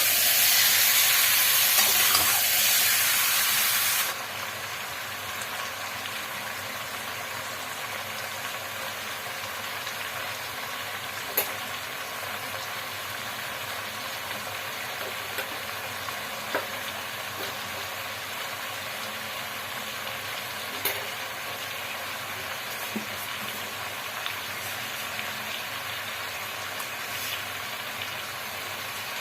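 Chicken curry frying and sizzling in a pan, loud for about four seconds and then suddenly quieter, with a steady sizzle and a few sharp clicks now and then.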